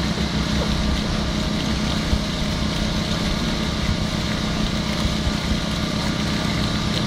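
A small engine running steadily at a constant speed, a continuous even drone.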